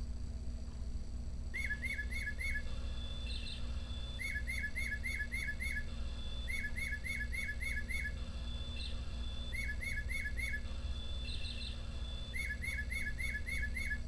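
Quartz singing bird clock's speaker playing a recorded Tufted Titmouse song in the clock's low-pitched version. Clear whistled notes come in five bursts of four to six quick repeated notes, starting about a second and a half in.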